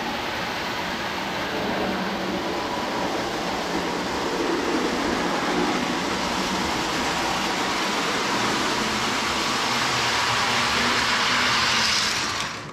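Lionel O-gauge toy train running on its track, a steady whir and rumble of motor and wheels that grows louder toward the end and then cuts off abruptly.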